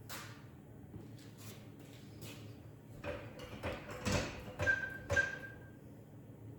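Metal tools and parts knocking and clanking during engine installation work, with scattered light knocks and a cluster of louder clanks in the middle, a couple of which ring briefly like struck steel.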